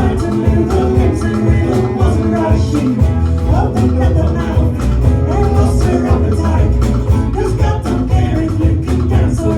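Live band playing an instrumental passage, with a steady percussion beat under the bass and pitched instruments.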